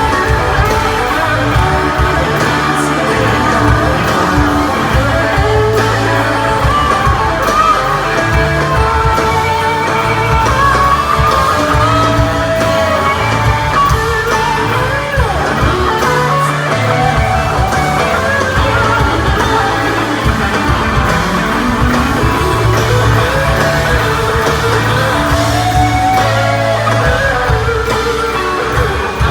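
Live rock band playing in an arena: guitar lines bending over a steady bass and drums, with some singing.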